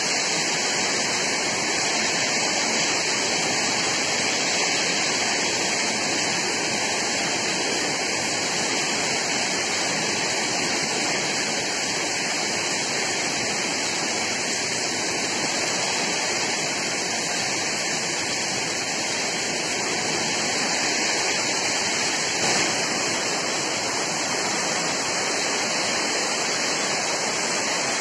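Heavy rain pouring down in a storm: a steady, loud rushing hiss, with one brief knock about two-thirds of the way through.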